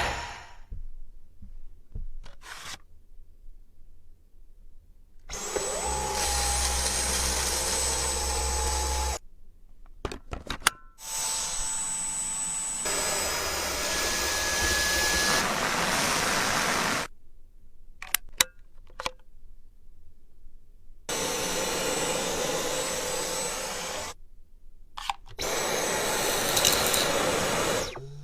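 A stick vacuum runs in four bursts of a few seconds each. Each burst is a steady rush of airflow with a high motor whine, and it starts and stops abruptly. Between the bursts are quieter gaps with a few sharp clicks.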